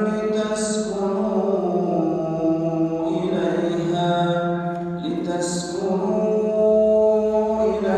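A man chanting Quran recitation in Arabic, holding long melodic notes and moving slowly between pitches, with short breaks between phrases.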